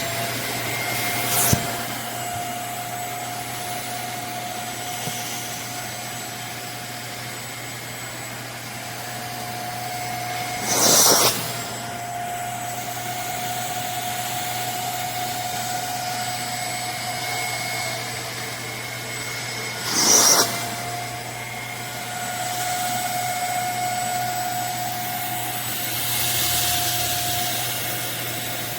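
Armor All 4-gallon wet/dry shop vacuum running steadily with a whining motor note. Brief louder bursts of noise come about a second and a half in, about eleven seconds in and about twenty seconds in.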